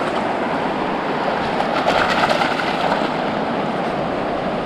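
Steady rush of surf breaking on the beach, swelling about two seconds in.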